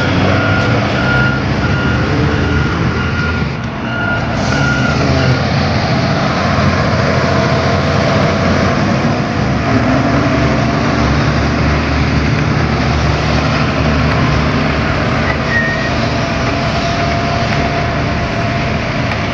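Diesel engine of a motor grader running steadily under load while spreading road subbase. A reversing alarm beeps repeatedly for about the first five seconds, then stops.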